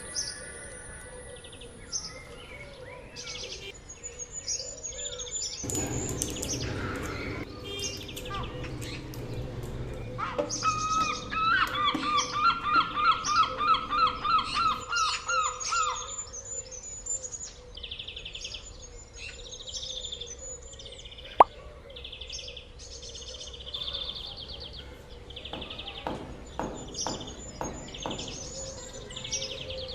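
Birds chirping and calling, with a fast run of repeated chirps, about four a second, in the middle. A single sharp click about two-thirds of the way through.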